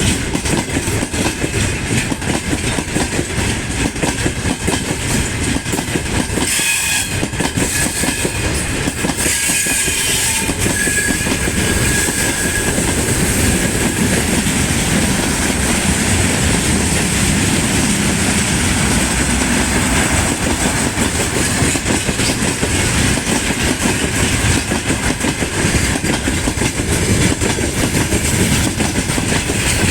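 A loaded freight train rolling past, its wagon wheels clattering steadily over the rail joints, with a faint high tone from about seven to thirteen seconds in.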